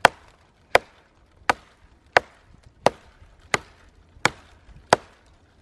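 Small pack axe chopping into a dry, long-dead log: sharp, evenly paced strikes about every three-quarters of a second, eight or nine in all.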